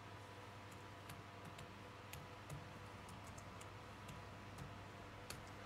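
Faint, irregular clicks of typing on a computer keyboard, a dozen or so scattered through, over a low steady electrical hum.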